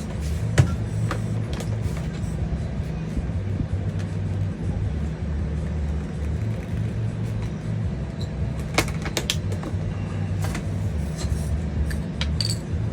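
A few sharp clicks and taps of small paintball-marker parts being handled while O-rings are fitted, over a steady low hum.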